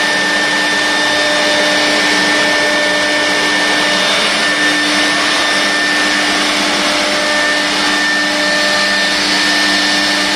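CNC router running: the steady whine of its spindle over the loud, even rush of dust extraction.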